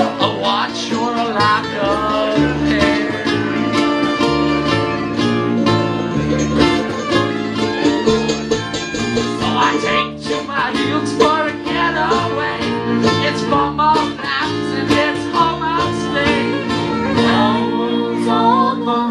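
Live acoustic string band playing a bluegrass-style tune: a bowed fiddle, banjo, strummed acoustic guitars and upright bass together, at a steady loud level.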